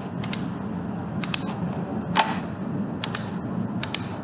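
Computer mouse clicking, mostly in quick double clicks about once a second, over a steady low hum.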